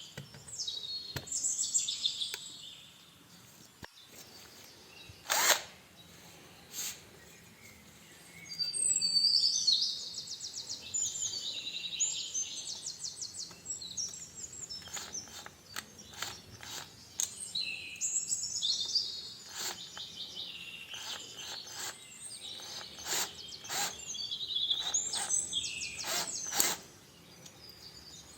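Birds chirping in bouts of rapid high trills, with a few sharp clicks or knocks scattered among them, the loudest about five seconds in.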